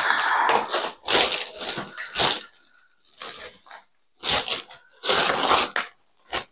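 Plastic grocery bags and food packaging crinkling and rustling in several short bursts with pauses between them, as the shopping is handled.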